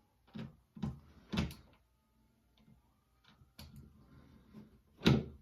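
A few separate knocks and clatters of hand tools and small hardware being handled, about five in all, the loudest near the end.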